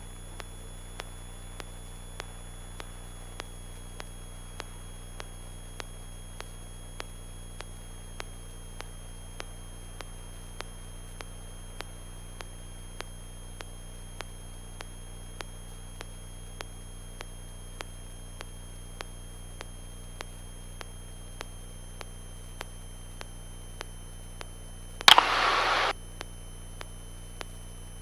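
Cessna 172N's engine and propeller running steadily in cruise-descent, heard as a low even hum with a faint tick about twice a second. About 25 seconds in, a loud burst of static lasts about a second.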